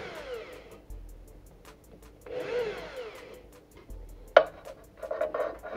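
An electric drill runs in two short bursts of about a second each, its pitch rising and falling as it bores into a wooden board. Background music with a steady ticking beat runs throughout, and plucked notes come in loudly near the end.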